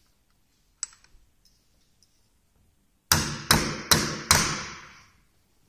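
Four sharp metallic knocks about 0.4 s apart, each ringing briefly: a wheel balancer's quick-release hub nut being struck by hand on its threaded shaft to clamp the wheel tight.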